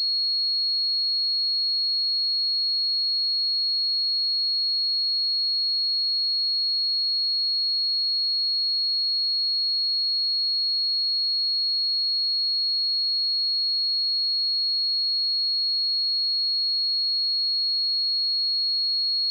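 Pure 4313 Hz sine-wave test tone, a single steady high-pitched whistle held at constant pitch and level.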